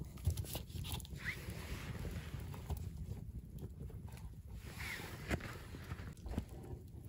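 Wind rumbling on the microphone, with jacket fabric rustling close by and a few sharp crackles from a wood campfire.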